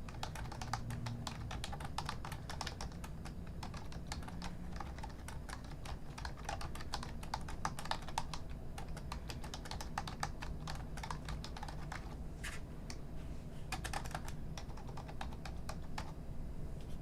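Typing on an old computer keyboard: a fast, irregular run of key clicks with a brief pause about three-quarters of the way through.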